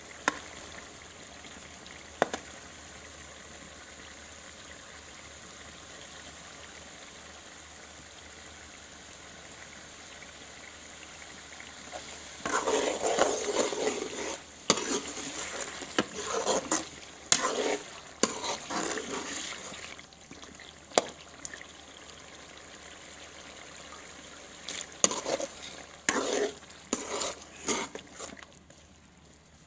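Chicken masala sizzling steadily in a metal karahi pot, with a metal spoon stirring and scraping against the pot in bursts about halfway through and again near the end, and a few single clinks.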